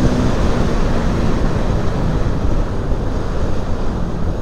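Motorcycle ridden at speed: heavy wind buffeting on the microphone over the engine running, a steady engine tone fading under the wind within the first half-second.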